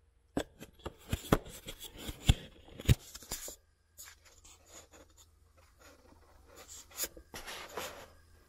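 Close handling noise: scratchy rubbing with several sharp clicks in the first three seconds, then fainter rustling with a few more clicks near the end.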